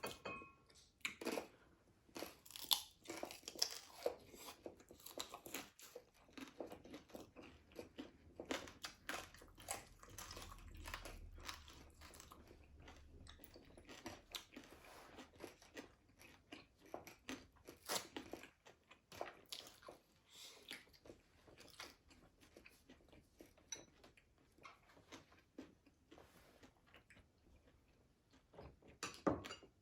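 Chewing and crunching of crispy fried food, with many sharp, irregular crunches and bites throughout.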